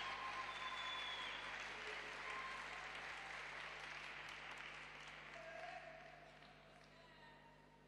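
Arena audience applauding, the clapping dying away steadily to near quiet by the end.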